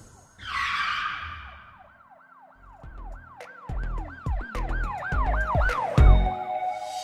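Channel intro sound effects. A whoosh comes first, then a siren-like tone rising and falling about three or four times a second over low thumps, growing louder, with a hit near the end.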